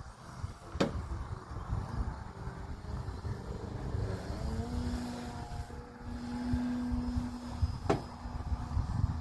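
Remote-control airplane's motor whining in the air, its pitch climbing about three seconds in and then holding steady. Wind buffets the microphone throughout, and two sharp clicks come near the start and near the end.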